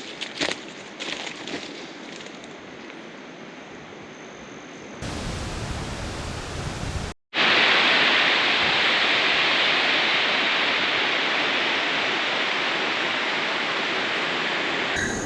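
Waterfall: a loud, steady rush of falling water that starts after a brief cut just past seven seconds in. Before it come a few faint rustles and clicks over a soft hiss.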